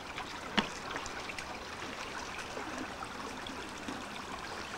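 Steady rush of flowing river water, with a single sharp knock about half a second in and faint scattered ticks.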